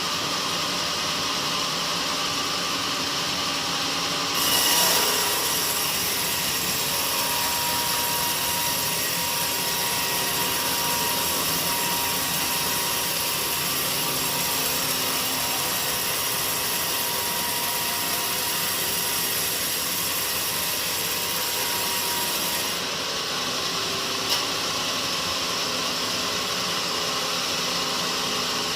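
Sawmill saw cutting through a teak log over the steady running of the mill's machinery. About four seconds in the blade bites into the wood and cuts with a hissing rasp and a faint steady whine, until the cut eases off near the end, leaving the machine running, with one sharp click shortly after.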